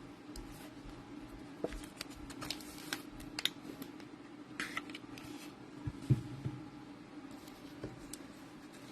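Trading cards and pack wrappers being handled: scattered light rustles, taps and scrapes over a steady low hum.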